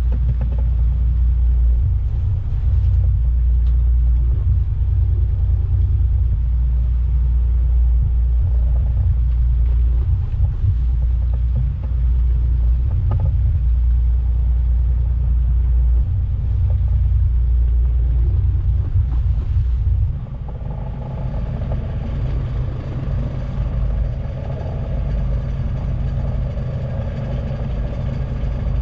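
Fishing boat engine running with a low rumble, wind buffeting the microphone in gusts; about twenty seconds in the buffeting drops away, leaving a steadier, quieter engine hum.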